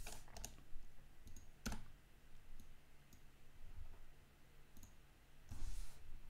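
Faint, scattered clicks of a computer mouse, about half a dozen, irregularly spaced, with a short soft rush of noise near the end.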